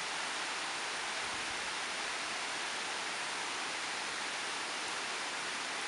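A steady, even hiss with no shot, click or knock standing out.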